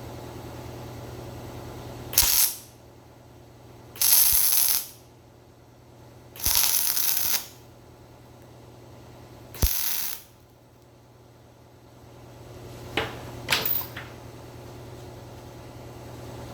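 Electric welding arc crackling in four short bursts of about half a second to a second each, welding a nut onto a broken exhaust bolt in an LS cylinder head so the bolt can be twisted out; two brief sharp crackles follow near the end, over a steady low hum.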